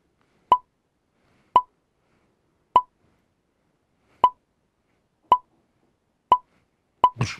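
A short digital pop sound effect, repeated seven times about once a second with silence between, each pop marking a picture appearing on screen. Just before the end there is a louder, sharper burst.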